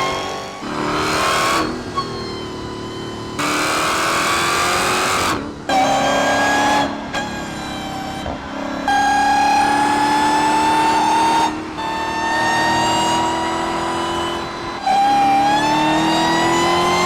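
Supercharged Dodge car engine accelerating hard: its pitch climbs steadily through a series of pulls, each broken off by a sudden drop, much like a run through the gears.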